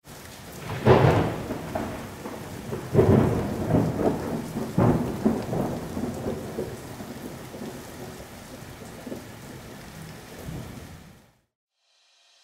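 Thunderstorm: steady rain with rolls of thunder, the loudest about a second in and again around three and five seconds, dying down and fading out about a second before the end.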